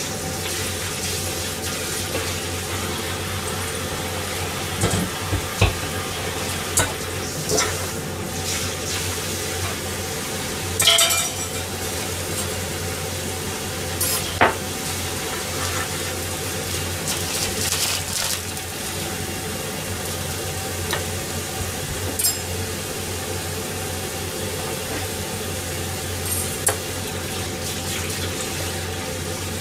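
Hamburger steak frying in a pan, a steady sizzle over a constant low hum, with scattered clinks and knocks of dishes and utensils.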